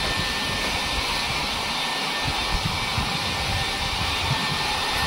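Philips hair dryer blowing steadily while drying hair: an even rushing hiss with a faint steady whine.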